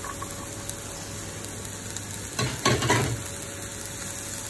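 Chopped cabbage, capsicum and chicken sizzling in oil in a frying pan as diced carrots are added, a steady hiss with one louder stretch of rustling and clatter about two and a half seconds in.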